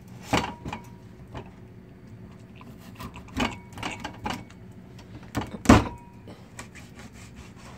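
Chef's knife cutting crosswise through a whole milkfish onto a plastic cutting board: a string of irregular knocks as the blade hits the board, the loudest about three-quarters of the way in.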